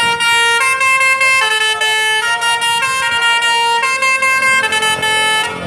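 A bus's 'basuri' telolet musical horn playing a tune of stepped, held notes, each about half a second long, then cutting off near the end.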